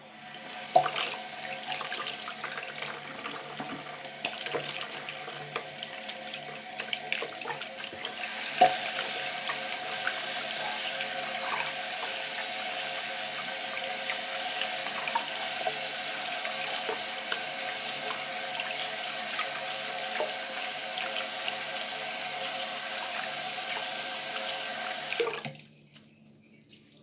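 Hands being washed under a running tap into a sink: water splashes unevenly with small knocks for the first several seconds, then runs as a steadier, louder stream. The water cuts off near the end.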